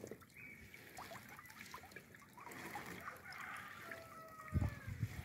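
Water trickling and dripping off a wet fish net held up over a fish cage, with small scattered ticks and splashes. Low handling thumps near the end.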